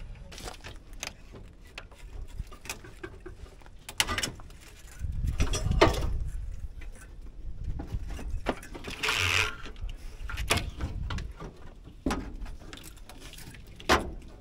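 Scattered clicks, knocks and scrapes of hand work on metal parts in a truck's engine bay. There is a low rumble about five to six seconds in and a short hissing scrape a little after nine seconds.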